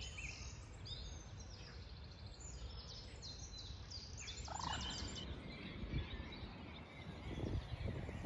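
Small songbirds singing: a busy run of high chirps and rapid trills, thickest in the first half, over a steady low rumble.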